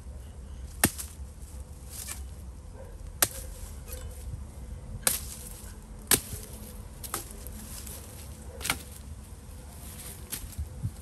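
Wood being chopped by hand with a blade: sharp strikes at an uneven pace, about one every second or two, some much louder than others.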